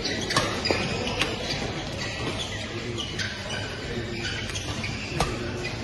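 Badminton doubles rally: several sharp cracks of rackets striking the shuttlecock, irregularly spaced, with short high squeaks of court shoes and a steady background of play on other courts.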